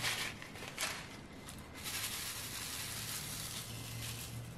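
Resin diamond-painting drills poured from a plastic bag into a plastic drill tray, with two short rustles near the start. Then a steady hissing rattle for about two and a half seconds as the drills are shaken and slide across the tray.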